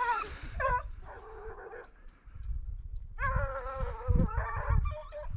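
A pack of Ariégeois scent hounds baying in full cry as they run a trail. The cry fades about two seconds in and swells again a second later, over a low rumble on the microphone.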